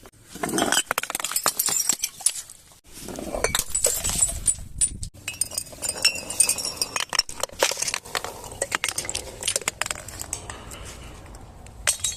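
Broken glass clinking and crunching: dense runs of sharp, bright clicks in several clusters, with brief lulls between them and a last short burst near the end.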